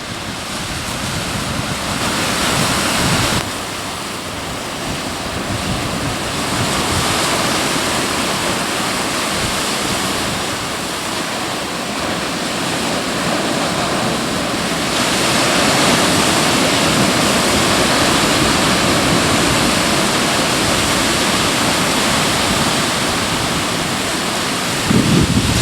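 Atlantic surf breaking on rocks: a continuous rush of waves that swells and ebbs, growing louder about halfway through.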